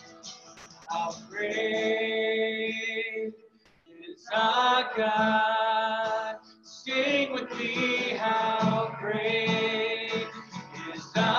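A man singing a slow worship song while strumming an acoustic guitar, in long held phrases separated by brief pauses, the longest about three and a half seconds in.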